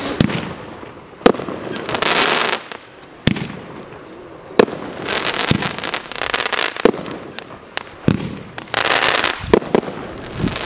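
Aerial firework shots from a consumer firework cake bursting overhead: about seven sharp bangs roughly one to two seconds apart, with stretches of dense crackling between them.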